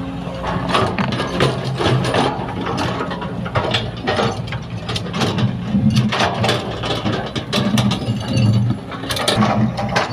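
Sumitomo hydraulic excavator at work: its diesel engine runs steadily under a string of irregular metallic clanks and knocks from the bucket and linkage as it digs soil.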